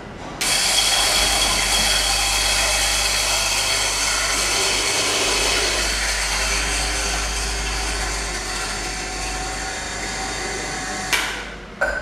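Carlton Kohi KH-800 electric coffee grinder switched on, its motor running steadily as it grinds coffee beans, then stopping near the end, followed by two sharp knocks.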